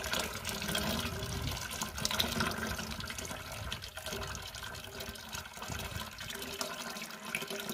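A thin stream of liquid pouring steadily from a plastic jar into a barrel of water, splashing and bubbling on the surface.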